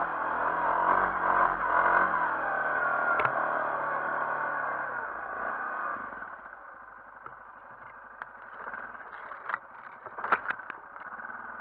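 Yamaha Grizzly 450 ATV's single-cylinder four-stroke engine pulling under throttle with its pitch rising and falling, then dropping to a quieter, lower run about six seconds in. Near the end come several sharp knocks and scrapes as branches brush against the quad.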